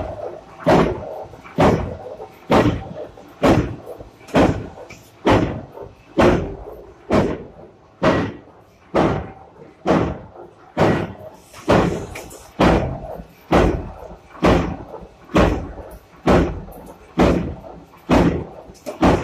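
Mechanical punch press stamping out a decorative metal strip: a sharp metallic bang about once a second, each one ringing briefly, in a steady rhythm.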